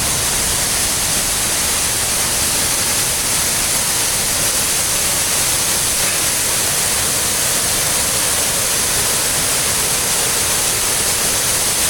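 Waterfall crashing down a hillside, close by: a loud, steady rush of falling water.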